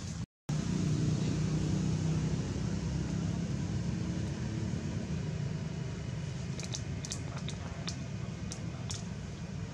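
A steady low rumble of background noise with a faint hum in it, cut by a brief dropout right at the start, and several faint sharp clicks in the last few seconds.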